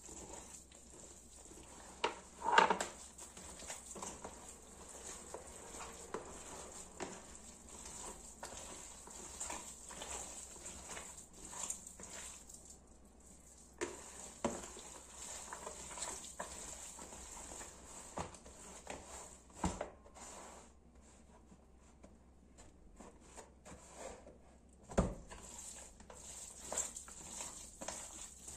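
Hands kneading a wet mix of minced meat, tomato, onion and oil in a plastic bowl: faint, irregular squishing and patting, with a sharper knock about two and a half seconds in and another a few seconds before the end.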